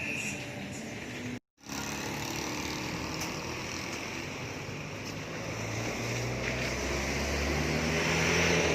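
Street traffic: passing motor vehicles running steadily, with a low engine rumble growing louder over the last few seconds as a vehicle comes close. It cuts to silence for a moment about a second and a half in.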